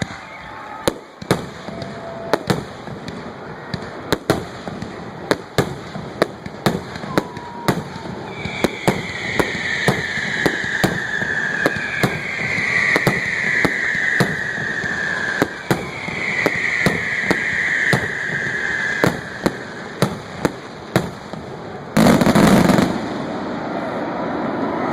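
Fireworks going off in a rapid, irregular string of sharp cracks and pops, a few a second. Three long falling whistles sound through the middle, and a single loud blast lasting about a second comes near the end.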